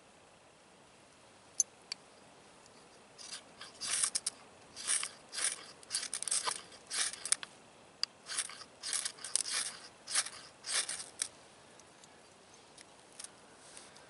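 Ferro rod scraped hard and fast with the high-carbon steel edge of a Mouce belt buckle, about fifteen quick rasping strikes at roughly two a second, throwing sparks into fatwood shavings until they catch. Two light clicks come just before the strikes begin.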